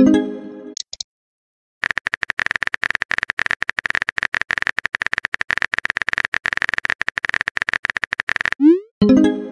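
Texting-app sound effects: a pitched chime as a message pops up, then rapid clicking of keyboard-typing taps for about seven seconds, then a short rising swoosh and another chime near the end as the next message is sent.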